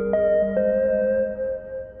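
Background music: a slow ambient tune of a few struck notes that ring on and fade away near the end.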